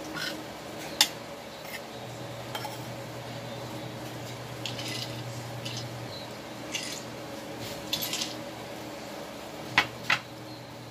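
Metal fork and spoon clinking and scraping against a plate while eating, in scattered light taps with two sharper clinks near the end.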